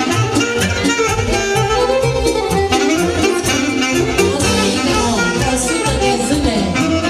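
Live folk band playing fast dance music, with a lead melody over a steady bass beat.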